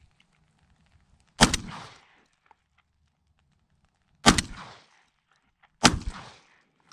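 Three shotgun blasts: one about a second and a half in, then two more a second and a half apart near the end, each cracking sharply and dying away quickly.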